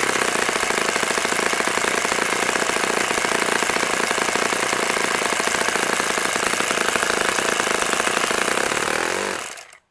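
OS FS-60 four-stroke glow engine with a wooden propeller idling steadily, its firing beats evenly spaced. It will not idle lower than about 3,150 rpm, which the mechanic puts down to a chip in the carburettor barrel that stops the throttle from closing fully. The sound fades out near the end.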